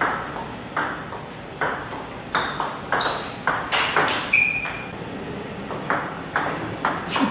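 Table tennis rally: the ball clicks sharply off Butterfly Super ZLC carbon blades with Tenergy 05 rubbers and off the table, in a steady rhythm of about two to three hits a second, each with a short ring. A brief high squeak comes near the middle.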